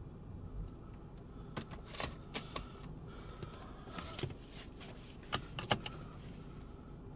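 A series of short, sharp clicks and knocks, the handling noise of someone moving about inside a vehicle, over a steady low rumble. The loudest knocks come about five and a half seconds in.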